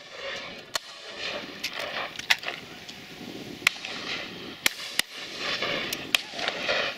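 Shotguns firing at driven partridges: a run of sharp reports spread unevenly through the stretch, some in quick pairs, the loudest about a third of the way in, over a steady rush of background noise.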